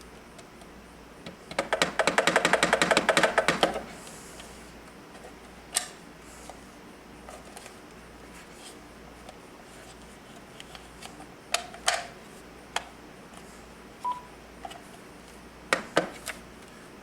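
Rapid ratcheting clicks for about two seconds, then a few scattered clicks and light knocks as a phone base and its cords are handled and secured.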